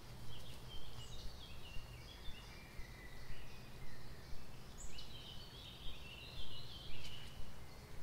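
A songbird singing twice: each phrase a run of quick trills stepping down in pitch, the first about a second in and the second about five seconds in, over a low steady rumble.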